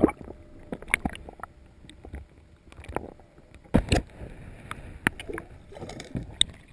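Muffled underwater sound picked up by a submerged camera: a dull, low water noise with scattered clicks and knocks, and a few louder thumps around the middle.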